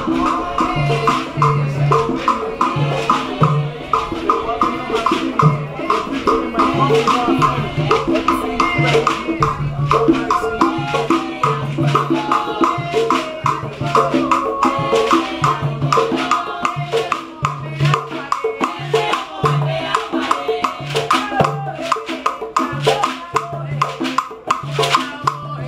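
Live Afro-Cuban percussion music: hand drums beating a repeating low pattern, with shakers and sharp wood-block clicks keeping the rhythm.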